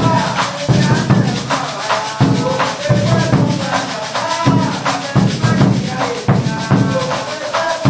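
Coco music: a man's voice singing over the jingling beat of a pandeiro and a low drum pulse, in a steady rhythm.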